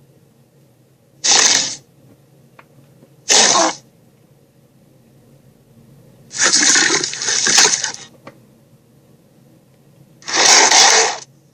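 Creature sound effects: four short, harsh, hissing bursts with pauses between them, the third the longest, over a low steady hum.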